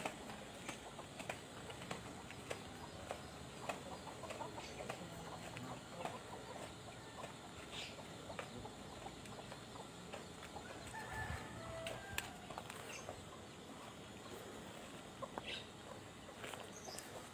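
Faint outdoor ambience with many scattered short clicks and a few brief bird calls.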